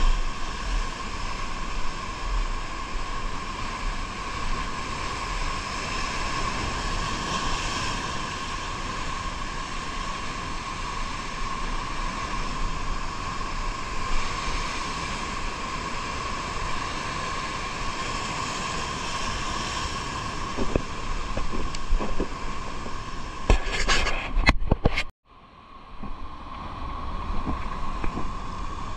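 A boat motor running steadily under wind noise on the microphone, with a few knocks and a brief sudden dropout about 25 seconds in.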